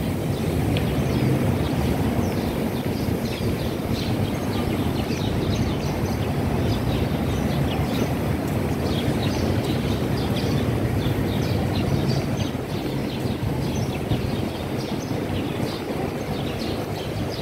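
Steady low outdoor rumble, with many short, high bird chirps scattered through it.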